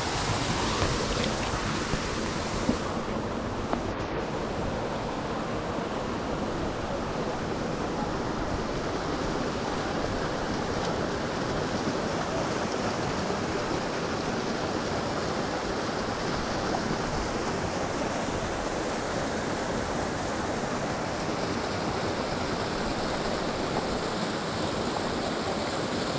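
Steady rushing roar of Bambarakanda waterfall's falling water, an even, unbroken noise.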